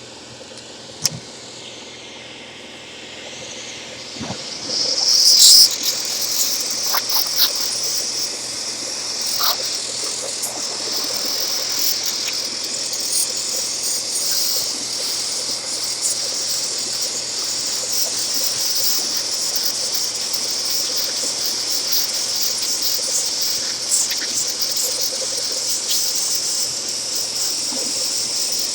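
Steady, high-pitched hiss of mild compressed air and vacuum suction working over a car radio chassis to clear metal filings, starting about four seconds in, with scattered light clicks and taps.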